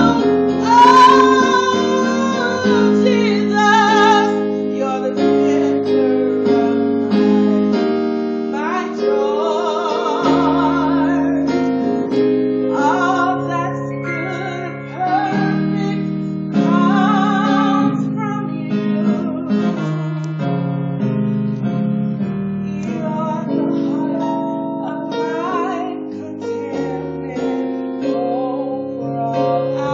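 A woman singing a slow gospel song into a microphone, holding notes with vibrato, accompanied by piano-sounding chords on a Roland XP-80 keyboard synthesizer.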